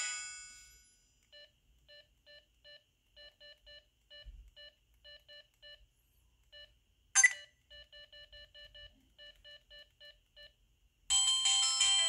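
Samsung SGH-T629 phone sounds: a chime fading out, then strings of short, faint key beeps with a brief sharp tone about seven seconds in. Near the end, a ringtone starts playing loudly.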